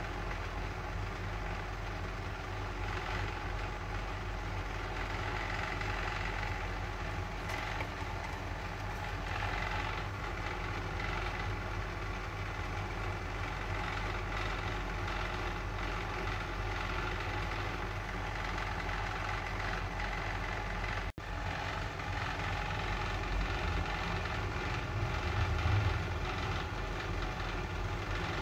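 Steady mechanical drone, like a motor or fan running, with a low hum. It cuts out for an instant about 21 seconds in.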